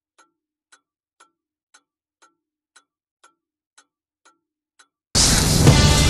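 Wristwatch ticking evenly, about two ticks a second. About five seconds in, loud rock music cuts in suddenly and drowns everything.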